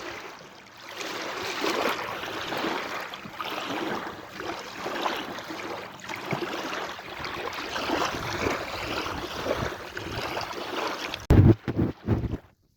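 Sea waves washing in, a rushing hiss that swells and eases. Near the end, loud gusts of wind buffet the microphone.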